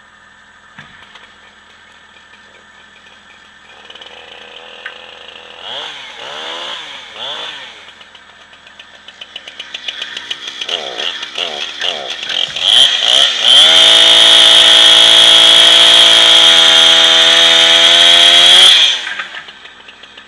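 Two-stroke chainsaw revved in short blips, then held at full throttle for about five seconds while cutting a branch off a fallen poplar, and let off near the end. The low idle of a snow-groomer engine runs underneath.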